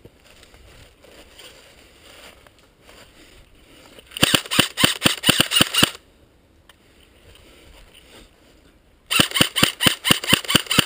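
G&G CM16 Raider DST electric airsoft rifle firing two rapid bursts of shots, each about two seconds long. The first comes about four seconds in, the second about nine seconds in.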